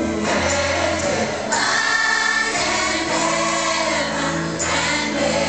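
Children's choir singing a song together, a continuous stretch of ensemble vocals.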